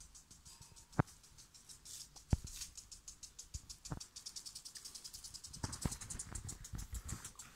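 Crickets chirping in a steady fast pulse, about eight pulses a second, with a few sharp clicks over it, the loudest about a second in.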